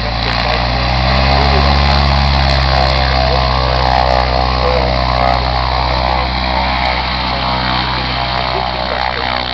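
Single-engine biplane's piston engine and propeller running as it taxis off across the grass. The sound swells about a second or two in, then slowly fades as the plane moves away.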